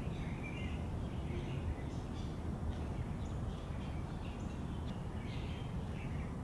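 Birds chirping here and there over a steady low background rumble of outdoor ambience.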